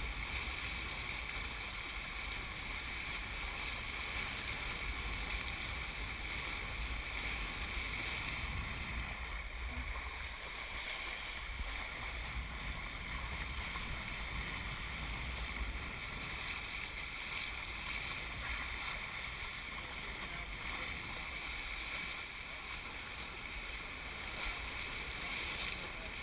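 Steady rush of water along a Hobie 21SE catamaran's hulls as it sails through chop, under a constant low rumble of wind on the microphone.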